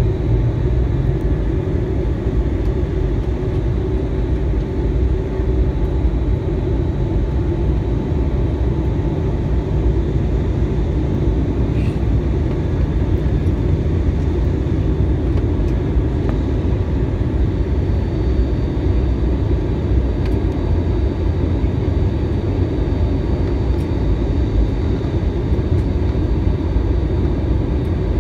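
Airliner cabin noise on the descent: a steady low rumble of jet engines and rushing air heard from inside the cabin, with a faint high steady whine joining about two-thirds of the way through.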